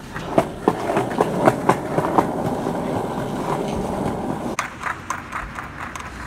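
Skateboard wheels rolling along a concrete sidewalk, clacking over the joints between the slabs. The rolling cuts off suddenly about four and a half seconds in as the board stops, leaving a few scattered clicks.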